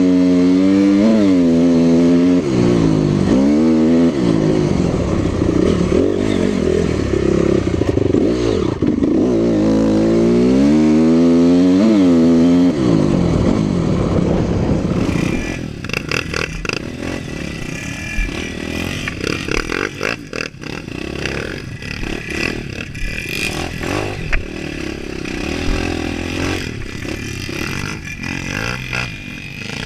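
Honda dirt bike's engine revving up and easing off over and over while being ridden, its pitch climbing and falling every second or two. After about fifteen seconds it gives way to a quieter stretch of motorcycle running at low revs, with clattering and scraping knocks.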